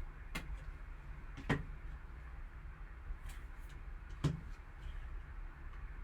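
Three sharp taps and clicks, with a few fainter ticks between them, over a steady low hum: trading cards and their hard plastic holders being handled and set down on a table.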